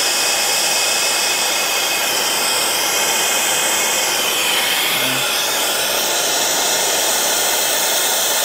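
Acetylene B-tank torch burning with a steady hiss, its flame heating a copper pipe joint for brazing.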